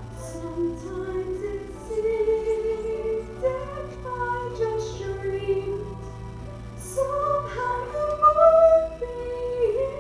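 A woman singing a slow ballad solo into a microphone, with long held notes that swell loudest near the end, over soft sustained accompaniment chords.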